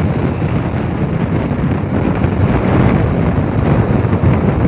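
Wind buffeting the action camera's microphone on a moving motorcycle, with the bike's engine and road noise underneath as a steady rumble.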